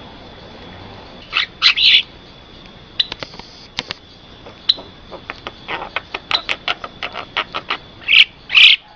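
Javan myna (jalak kebo) calling: a run of quick short clicking notes mixed with harsh squawks. The loudest squawks come as a pair about a second and a half in and again near the end.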